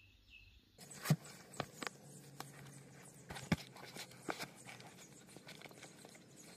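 Scattered taps, knocks and rustles of a running shoe being pulled on and its laces tied by hand, the two loudest knocks about a second in and midway through.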